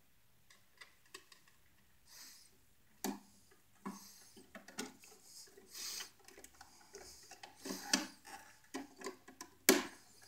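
Scattered clicks, scrapes and light taps of hand work at an electrical outlet: wire strippers and stiff copper wires being handled at the outlet's terminals. Two sharper clicks stand out, one about eight seconds in and one near the end.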